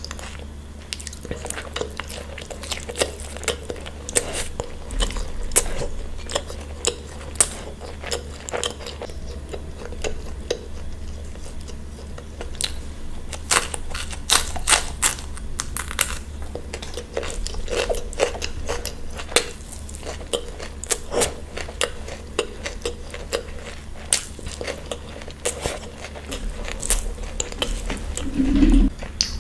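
A person chewing and biting food close to the microphone: many short, wet mouth clicks with occasional crunches.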